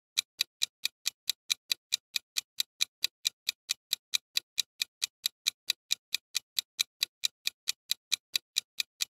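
Clock-tick sound effect of a quiz countdown timer: short, sharp, evenly spaced ticks, roughly four and a half a second, stopping just before the end.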